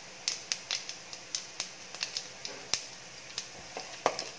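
Mustard seeds and dals popping in hot sesame oil in a stainless steel kadai: sharp, irregular pops, a few a second. Near the end a wooden spatula starts stirring them in the pan.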